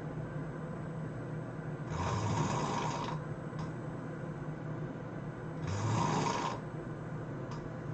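A person snoring in a slow breathing rhythm: two rasping snores about a second long, roughly four seconds apart, over a steady low hum.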